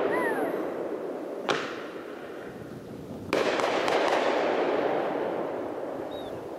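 Aerial firework shells bursting: two booms, about a second and a half in and again near the middle, each followed by a long rolling echo that slowly dies away.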